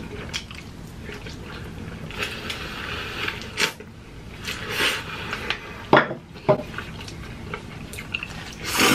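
Slurping and chewing of saucy ramen noodles. Two sharp clicks of eating utensils come about six seconds in.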